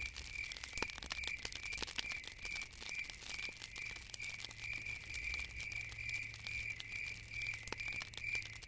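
Faint ambience: a high, whistle-like chirp pulsing about three times a second, over scattered crackling clicks and a low hum.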